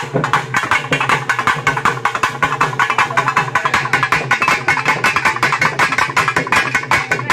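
Fast, steady drumming with sharp, rapid strokes, many a second.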